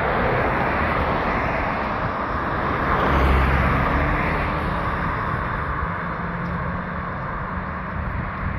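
Road traffic going by, with a car passing close and loudest about three seconds in, its engine and tyre noise swelling and then fading.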